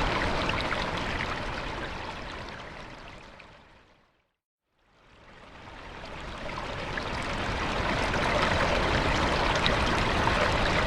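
Steady rushing waterfall noise that fades out to silence about four seconds in, then fades back in again about a second later.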